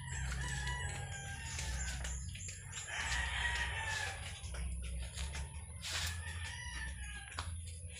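Roosters crowing several times, the longest crow about three seconds in, over a low rumble on the microphone.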